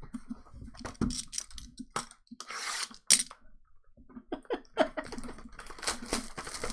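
Trading cards and pack wrappers being handled: a series of short clicks and rustles, with a longer crinkling rustle about two and a half seconds in and a sharp snap just after.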